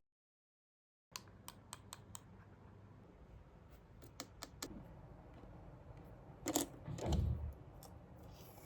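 A run of light, sharp clicks and taps over faint room tone, as of small objects being handled, with two louder knocks about two-thirds of the way in.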